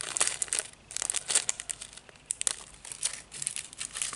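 Small clear plastic bags of diamond-painting drills crinkling as they are handled, pulled apart and laid down, in quick irregular crackles.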